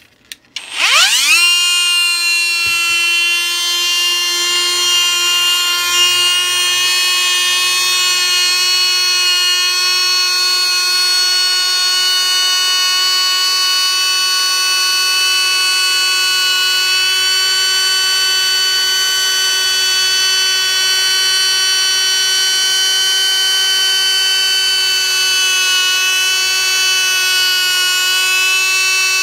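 Kobalt die grinder switched on, spinning up with a quick rising whine about half a second in, then free-running at high speed with no load as a steady high-pitched whine. Its output shaft heats up as it runs, which the owner thinks may be a transmission short of lubricant.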